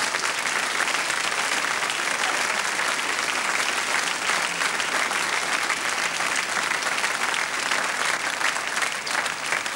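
A theatre audience applauding steadily after a punchline, a dense, even patter of many hands clapping.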